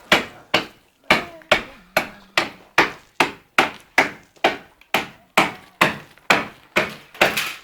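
Steady hammering: sharp, hard blows, about two a second, keeping an even rhythm throughout.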